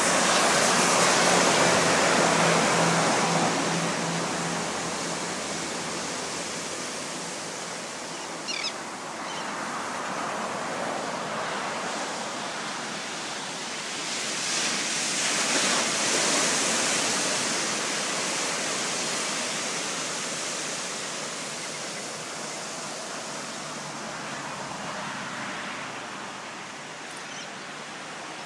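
Ocean surf breaking and washing up the shore, swelling loudest at the start and again about halfway through. A faint short bird call sounds about a third of the way in.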